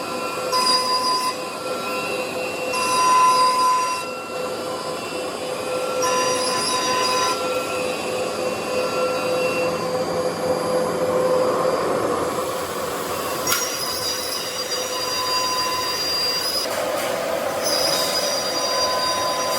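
Woodworking CNC router with a 3.5 kW spindle, running and cutting, with a steady high squealing whine whose pitch mix shifts as the bit works. There is a sharp click about two-thirds of the way through.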